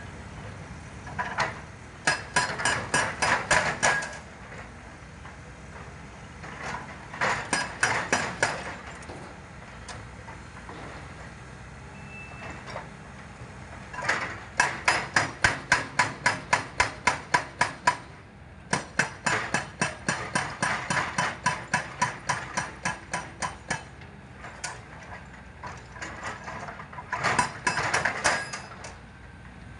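Hydraulic rock breaker on a Volvo crawler excavator hammering rock in bursts of rapid blows, about four to five a second, each burst lasting a couple of seconds to five seconds, with pauses between. Under the pauses the excavator's engine runs steadily.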